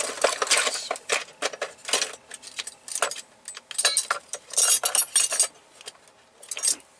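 Metal cutlery and kitchen utensils clinking and rattling as a hand rummages through them for a spoon: quick, irregular clatters, busiest about two-thirds of the way through, then dying away.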